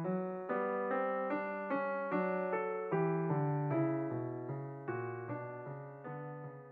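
Piano music: single notes and chords struck at an even pace of about two to three a second, each dying away, fading out near the end.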